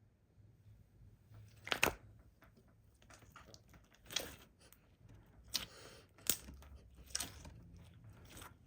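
Glittery slime being squished and pressed by hand, with about five louder wet crackling pops spread through it.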